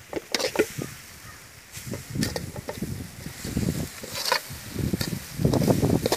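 Metal ladle scraping and clinking against a metal cooking pot while a dry, crumbly egg fry is stirred. It comes in uneven strokes with sharp clinks, heavier near the end.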